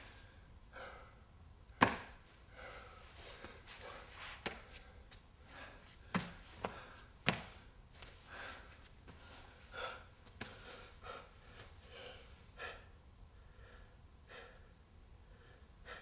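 A dancer moving on the floor: scattered knocks of his knees, hands and the drawing sticks held in them against the floor, with softer scuffs in between. The loudest knock comes about two seconds in.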